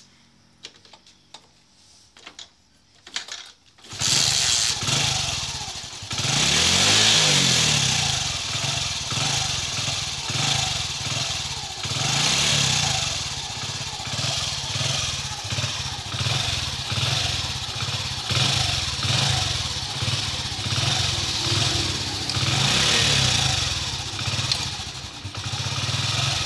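A Hero Passion Pro's single-cylinder four-stroke motorcycle engine starts about four seconds in and runs, revved up and down several times, after a few small clicks from work on the wiring.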